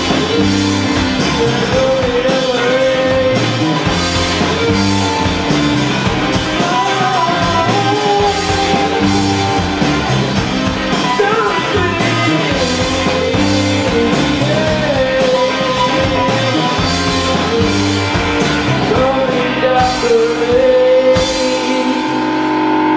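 Rock band playing live: a singer over electric guitar, bass guitar and drum kit, with a steady beat.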